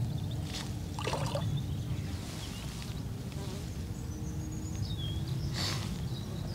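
Hooked common carp splashing at the water's surface in a few short bursts as it is played close in, over a steady low rumble. A high wavering whistle sounds briefly about four seconds in.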